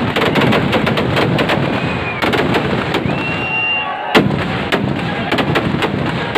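Firecrackers packed inside a burning Ravan effigy going off in a rapid, irregular string of sharp bangs and crackles over a constant fizzing, with one especially loud bang about four seconds in. A brief high whistle sounds near the middle.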